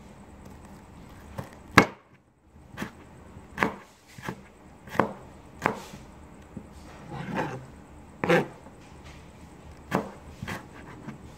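Chef's knife chopping bilimbi (cucumber tree fruit) on a cutting board: about a dozen sharp knocks of the blade through the firm fruit onto the board, roughly one a second at an uneven pace.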